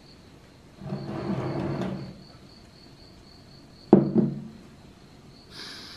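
Earthenware clay-pot lid set down on a wooden table about four seconds in: a sharp knock with a brief ring. About a second in, a low sound lasting about a second, and near the end a short sniff.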